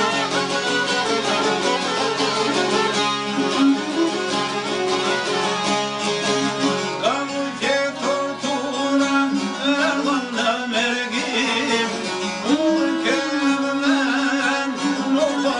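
Albanian folk ensemble playing: çiftelis and a sharki, long-necked lutes, plucked in fast runs with a violin, and a man singing over them from about halfway in.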